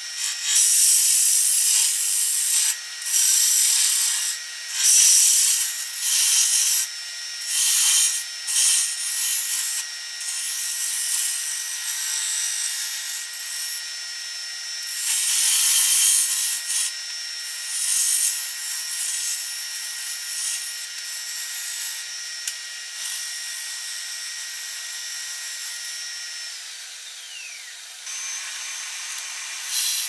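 Red cedar spinning on a Grizzly wood lathe while a round cutter shaves it in repeated passes, each pass a loud scraping hiss, over the lathe's steady whine. The cutting turns to quieter rubbing in the second half, and near the end the whine glides down in pitch.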